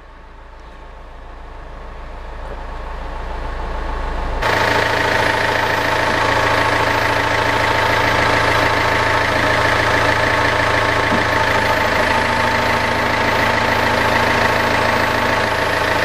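Citroen C5 engine idling while its Hydractive suspension is exercised after a ram replacement. For the first few seconds it is a low hum, growing louder. About four seconds in it turns into a louder, fuller, steady running sound with a whine in it.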